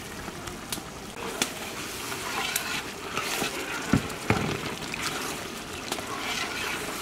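Mutton curry gravy simmering in a large metal pot while chopped tomatoes are stirred in with a long metal ladle; the ladle knocks twice against the pot about four seconds in.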